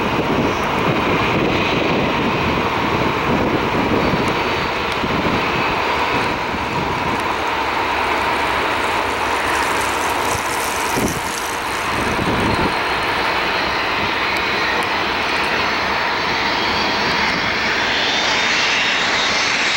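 Jet engines of a twin-engine airliner with tail-mounted engines (McDonnell Douglas MD-80/90 family) flying in low with its gear down. A steady jet rumble, with a thin high whine that comes in near the end as the aircraft draws closer.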